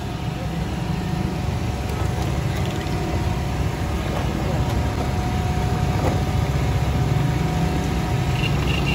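Steady low rumble of an engine idling, with some street noise over it.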